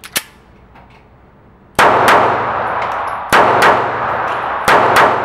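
Taurus PT738 TCP .380 ACP pocket pistol: a couple of metallic clicks as it is readied, then six shots fired in three quick pairs, each shot ringing on in the reverberation of an indoor range.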